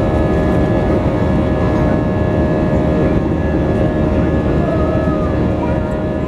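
Inside the cabin of an Airbus A320 with IAE V2527 turbofan engines climbing out after takeoff: a steady, loud roar of engines and airflow with a steady whine mixed in.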